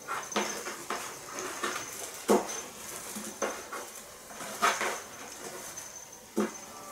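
A cat scrabbling in a cardboard box, pawing at a cat teaser toy: irregular scratching and rustling of cardboard with a few sharper knocks, the loudest about two seconds in, near five seconds and near the end.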